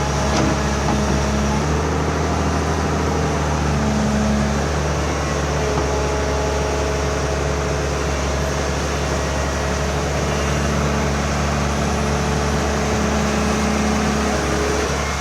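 Excavator's diesel engine running steadily under load, with the hum changing pitch a few times as the hydraulics work.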